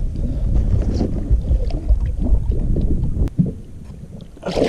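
Water sloshing and splashing at a boat's side as a large musky is held in the water and let go, with wind buffeting the microphone. A sharp knock about three seconds in, after which it goes quieter.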